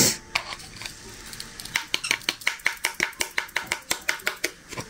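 Diamond painting drill pen tapping resin drills onto the sticky canvas one after another: a quick, even run of light clicks, about six a second, from about two seconds in until near the end. A single dull knock at the very start.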